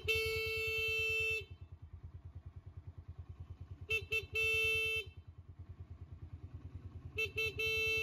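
Motorcycle electric horn pressed from the handlebar button in three bursts, each two quick beeps then a held beep of about a second. Under the horn a motorcycle engine idles with a steady rapid pulse.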